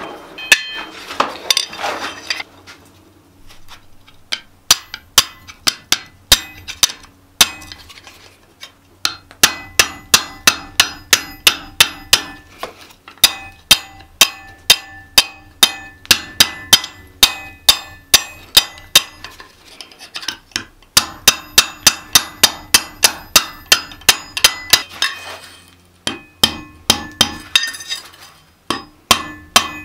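Hand hammer striking red-hot mild steel flat bar on an anvil, about three blows a second in runs broken by short pauses, while a spring is forged. Each blow leaves a ringing tone that carries on between strikes.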